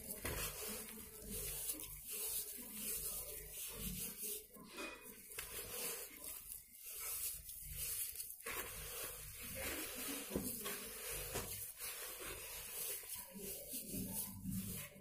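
A hand squeezing and crumbling wet sand, with gritty rubbing and crunching in uneven strokes.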